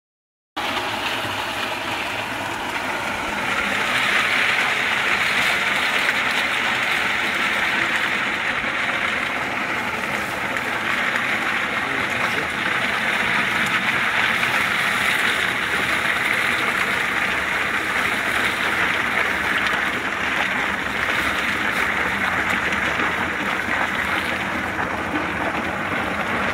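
Walnut peeling machine running: green walnuts churning in its grated, bladed steel drum under a water spray, making a steady, wet rushing noise. It starts abruptly about half a second in and grows a little louder a few seconds later.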